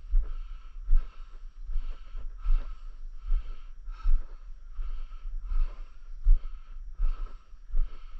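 Footsteps of a person walking at a steady pace on a dirt trail, a dull thump with a scuff about every 0.8 seconds.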